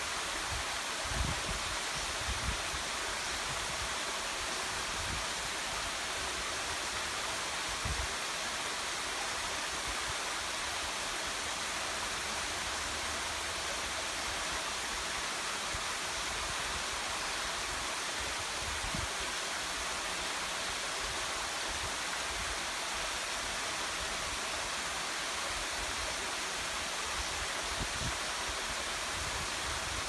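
Waterfall pouring steadily: an even, unbroken rushing of falling water, with a few brief low bumps.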